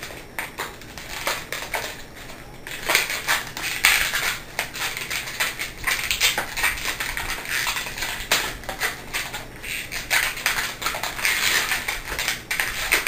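Small twisted latex balloons rubbing and grating against each other in the hands as the red balloon flower is fixed onto the green balloon leaves: a dense, irregular run of short crackling rubs.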